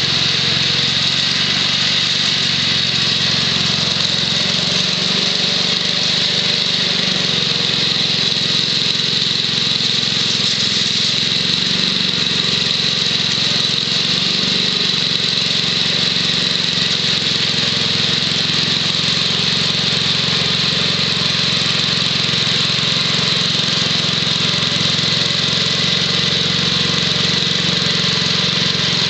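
The 6 HP Tecumseh H-60 single-cylinder engine of a 1967 Wheel Horse Lawn Ranger garden tractor running steadily while it drives a 32-inch snowthrower through snow.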